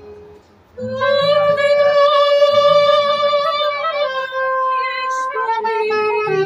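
A woman sings a slow Romanian ballad in long held notes over plucked guitar notes, starting about a second in after a short pause.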